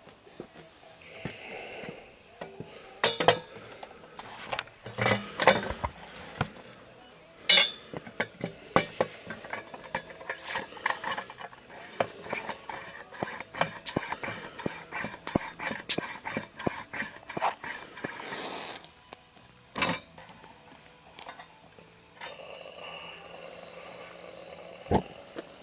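Metal clinking, tapping and rattling as a camp lantern's metal parts are handled and fitted together, in a busy run of sharp clicks. A soft steady hiss follows near the end.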